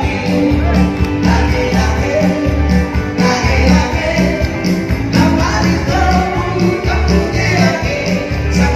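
Upbeat dance music with a singer and a steady, pulsing bass beat, played loud.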